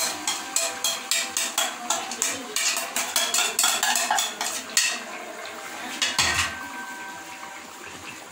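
Wooden spatula scraping and knocking spiced yogurt out of a white bowl into an aluminium cooking pot: a quick run of clacks, about two or three a second. After that the spatula stirs the pot, with one heavier knock about six seconds in.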